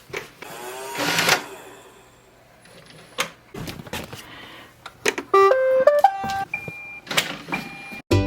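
Roomba robot vacuum playing a short electronic melody of stepped tones about five seconds in, then two thin high beeps, among scattered handling clicks and rustles.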